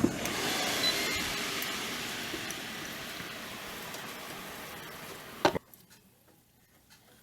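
Ninja Foodi air fryer's fan running with a hiss, slowly fading, then a sharp click about five and a half seconds in, after which it goes almost quiet.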